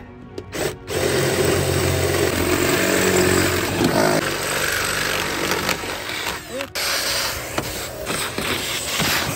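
A power tool running in long stretches with a short break a little before the seven-second mark, over background music.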